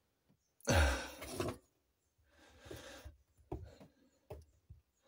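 A man's heavy sigh close to the microphone about a second in, then softer breathing and a few small clicks as fingers take hold of the fuel pump's plastic wiring connector on top of the tank.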